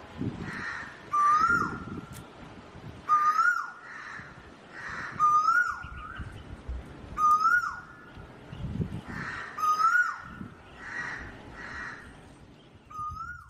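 A bird repeating a short whistled call about every two seconds: each note holds, rises briefly, then drops off sharply.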